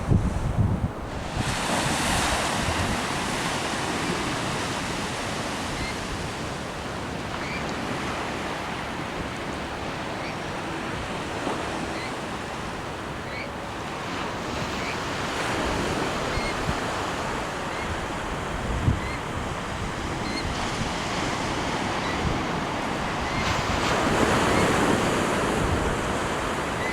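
Ocean surf breaking on a beach: a steady wash of waves that swells louder about two seconds in and again near the end, with wind gusting over the microphone.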